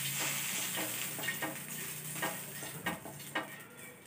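Oil sizzling on a hot pan as a brush spreads it over the surface, with repeated short scrapes of the brush strokes. The sizzle dies down toward the end.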